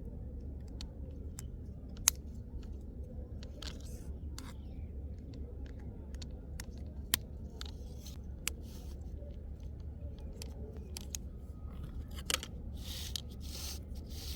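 Toy train and its packaging being handled: scattered sharp clicks and brief scrapes over a steady low hum, with two louder clicks about two seconds in and halfway through.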